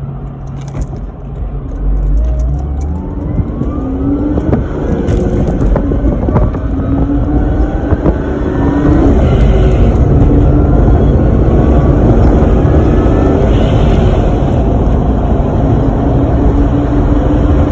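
Powerdyne-supercharged Lexus IS300's 2JZ-GE straight-six accelerating hard through the gears on low boost. Its pitch rises in two or three climbs over the first several seconds, then settles into a loud, steady run.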